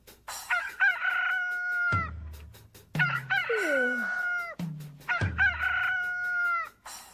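Rooster crowing three times, the Sound Ideas 'Morning Call' stock effect: each cock-a-doodle-doo rises quickly, holds a long steady note and drops off at the end.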